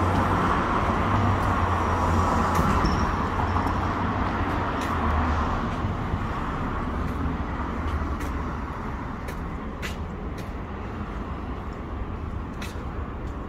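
City street traffic noise: the engine rumble of passing vehicles, loudest in the first several seconds and then easing off, with a few faint scattered clicks.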